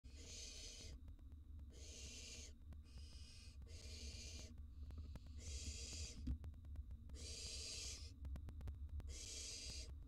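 Barn owl nestling's hissing begging call, a harsh breathy 'snore' repeated about seven times, each just under a second long, about every second and a half, over a low steady hum.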